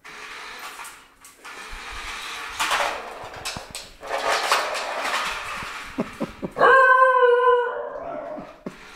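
A basenji gives one yodel-like howl, about a second long, about two-thirds of the way in. Before it comes a stretch of rustling, scuffling noise with a few sharp clicks.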